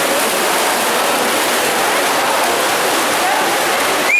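Swimmers splashing in the backstroke leg of a medley relay, a continuous rush of churning water. Spectators' shouts and cheers rise and fall over it, echoing in the indoor pool hall.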